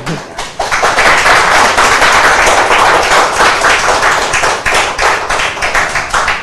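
Applause: loud, fast, overlapping hand claps from several people, swelling within the first second and thinning out near the end.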